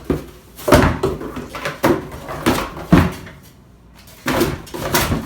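A Priority Mail package being handled and opened by hand: a string of about seven short rustles and clatters.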